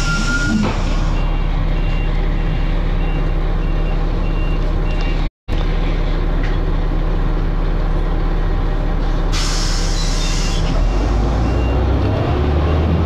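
Dennis Arrow double-decker bus's diesel engine running steadily, heard from inside the bus. A faint high beeping repeats about twice a second for a few seconds, twice. A burst of air hiss comes about ten seconds in, and near the end the engine note drops lower as the bus pulls up a hill.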